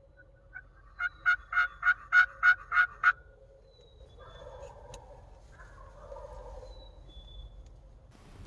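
Wild turkey calling: a run of about eight evenly spaced yelps, about three a second, followed by two fainter, rougher calls.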